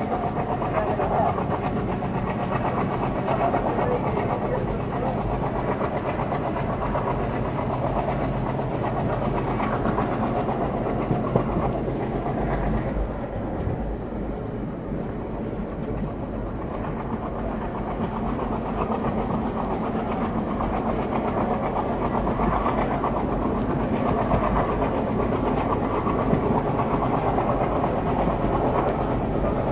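Passenger train running along the track: steady rumble and clatter of the coach wheels on the rails, with a low hum underneath, briefly softer about halfway through.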